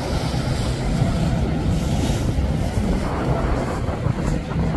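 Wind buffeting the microphone over breaking surf, with a center-console boat's Yamaha outboard motor running at speed through the chop.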